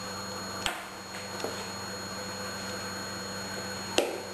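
A spoon clicking against a serving bowl: a light click about a second in and a sharper one near the end, over a steady electrical hum.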